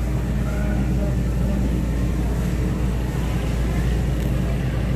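Steady low hum under a constant noisy background, with faint distant voices now and then.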